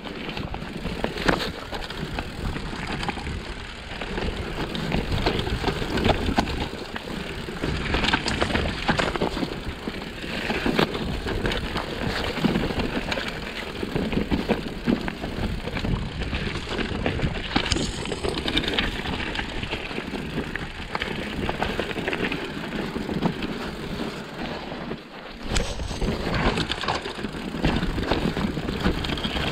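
Mountain bike riding down a rough dirt forest trail: tyres crunching over stones, roots and dry twigs, with many sharp knocks and rattles from the bike as it hits the bumps.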